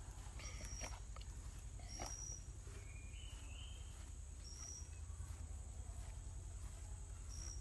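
Forest ambience: a steady high insect drone, with short high chirps repeating every couple of seconds and a lower rising call about three seconds in. A few soft taps and rustles come in the first two seconds.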